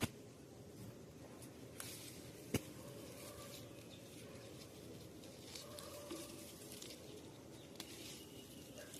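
Faint rustling and handling noises with two sharp clicks, one at the very start and one about two and a half seconds in.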